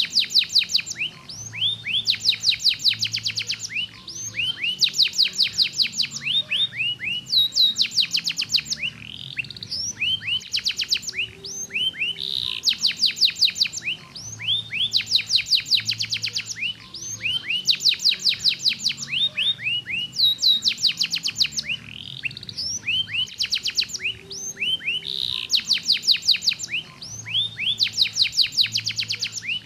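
Domestic canary singing: long phrases of fast, evenly repeated trill notes and rising sweeps, each phrase broken off by a short pause before the next begins.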